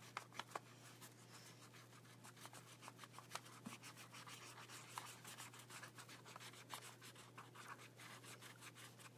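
Faint, quick scratching of a marker scribbling back and forth on paper as a child colours in a shape.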